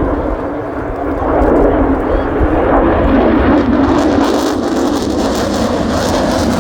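F-35B's single Pratt & Whitney F135 jet engine running loud during a flying display: a steady jet noise with a deep rumble, the hiss growing stronger from about four seconds in.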